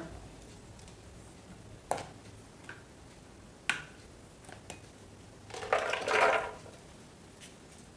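Soaked almonds poured from a plastic cup into an empty plastic blender jar, a short clattering rattle about six seconds in. Before it come a few sharp clicks and knocks as the blender lid is taken off and the cup is handled.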